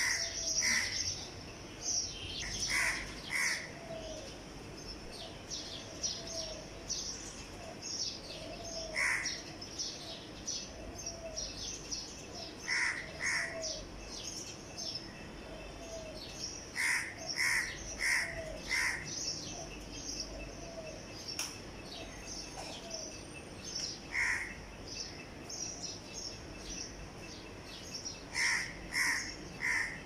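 A crow cawing in short harsh calls, singly or in quick runs of two to four, with pauses of several seconds between runs. Small birds chirp steadily in the background.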